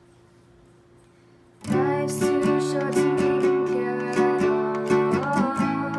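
Acoustic guitar strummed in a steady rhythm, starting suddenly about a second and a half in after a faint hum.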